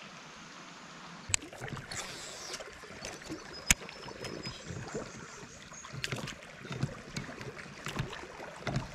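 Water lapping and sloshing against a drift boat, with scattered small clicks and knocks from a baitcasting reel and rod as a surface lure is wound in. There is a sharp click about a second in and another midway.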